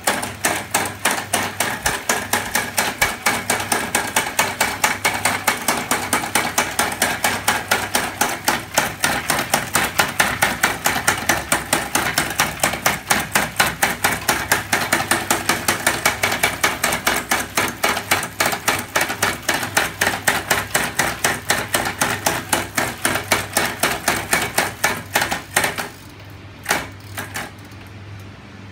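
Homemade magnet engine mechanism on a three-wheel bicycle running, its metal parts clacking in a fast, even rhythm of several knocks a second. It stops about 26 seconds in, and a couple of single clicks follow.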